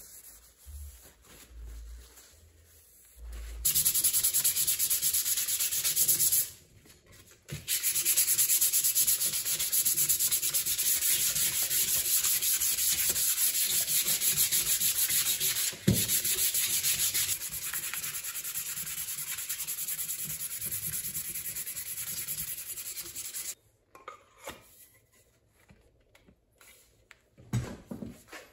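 Sandpaper rubbed by hand in fast back-and-forth strokes along a wooden handle: a steady, rapid scratching. It starts a few seconds in, breaks off briefly, and stops a few seconds before the end.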